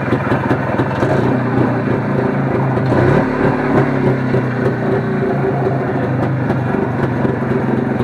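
Motorcycle engine running steadily, its revs rising briefly about three seconds in.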